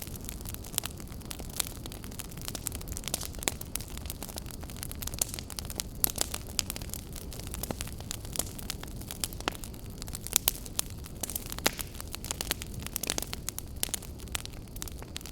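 Campfire crackling: irregular sharp pops and snaps, several a second with some louder ones, over a low steady rumble of the burning fire.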